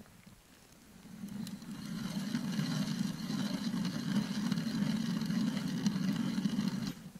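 A small engine running steadily. It comes up over the first couple of seconds, holds an even low hum, and stops abruptly near the end.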